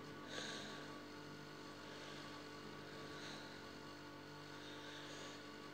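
Faint steady electrical hum over low background hiss.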